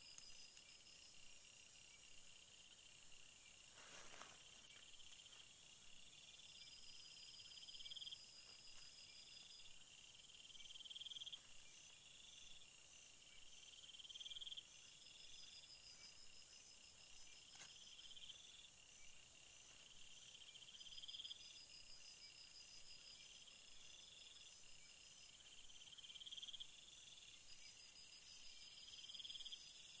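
Faint chorus of insects calling: one gives a short rising buzz that repeats about every two seconds over a steady high chirring, with a thin high hiss joining in near the end. Two faint clicks are heard, about four seconds in and again past the middle.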